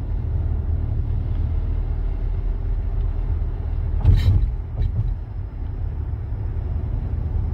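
Low, steady rumble of a moving car heard from inside the cabin: engine and road noise. A brief thump about four seconds in, with a smaller knock just after.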